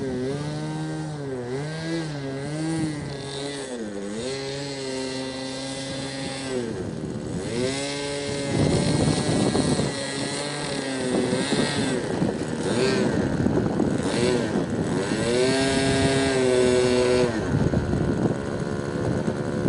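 Small internal-combustion engine of a radio-controlled model aircraft running in flight, its pitch repeatedly dipping and rising as the plane manoeuvres, with rougher gusty noise in places.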